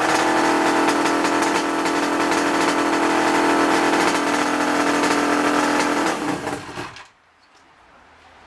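The freshly restored 1975 Suzuki GT550's three-cylinder two-stroke engine running steadily at idle, then dying away to quiet about six to seven seconds in.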